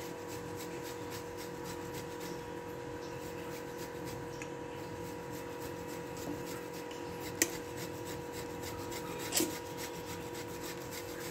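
Block of mozzarella cheese rubbed on a handheld metal grater in repeated rasping strokes, with two short sharp clicks in the second half.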